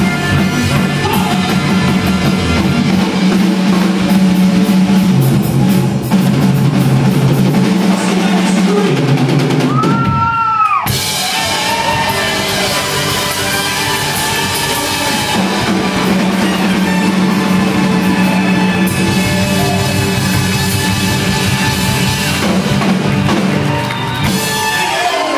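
Live band playing an upbeat rock-and-roll number with drum kit, electric guitar, bass and button accordion, and some singing. The bass and drums drop out briefly about ten seconds in, then the band comes back in. The band sound thins out near the end.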